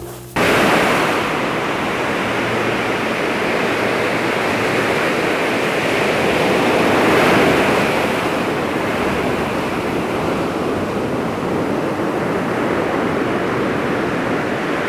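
Sea waves breaking and washing on a beach, a steady rush of surf that cuts in suddenly and swells about halfway through.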